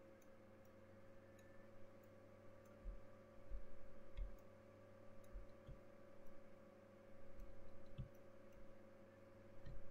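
Faint clicks and soft low knocks, scattered irregularly, over a steady low electrical hum, as from working a computer's pointing device at a desk.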